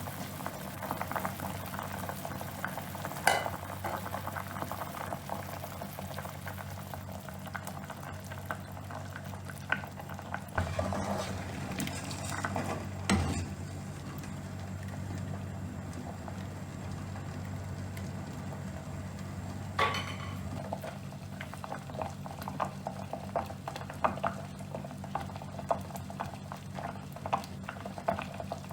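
Food cooking on a gas stove: liquid bubbling at the boil with a fine, steady crackle and a few sharp utensil knocks against the pot, over the steady hum of a kitchen range hood fan.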